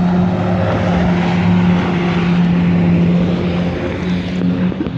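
Jet ski (personal watercraft) engine running at a steady pitch over a constant hiss.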